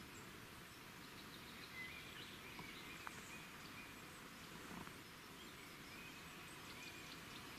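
Faint outdoor ambience: a steady hiss with faint, short high bird chirps and a few small clicks.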